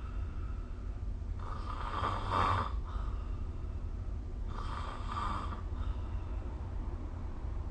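A person snoring: two snores about three seconds apart, each lasting a little over a second, over a steady low hum.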